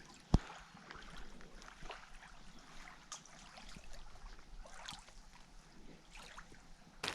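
Faint water lapping and trickling, with one sharp knock just after the start and a few light clicks and rustles after it.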